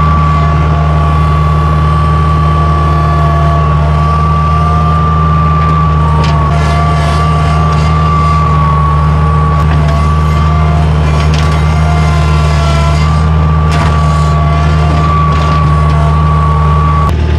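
Skid steer engine running steadily at high throttle with a steady high whine over it, and a few faint knocks.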